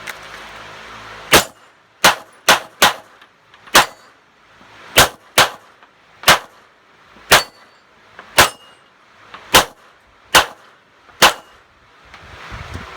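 Glock 17 9mm pistol fired thirteen times at an uneven pace over about ten seconds, some shots in quick pairs, with steel target plates clanging as they are hit. A timed steel-plate string.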